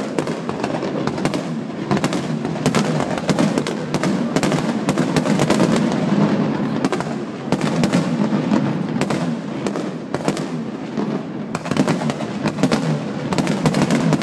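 Aerial firework shells bursting in quick succession: a dense run of sharp bangs and crackles over a steady rumble.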